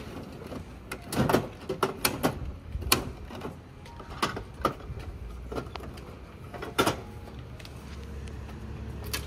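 Coins fed into a Bandai gashapon capsule-toy vending machine and its dial cranked: a run of irregular sharp plastic and metal clicks and clunks, mostly in the first seven seconds.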